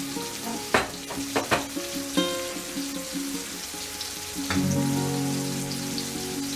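Whole button mushrooms sizzling steadily as they fry in a frying pan. Background music with struck, sustained notes plays over it, the notes coming in about a second in, around two seconds in and again near four and a half seconds.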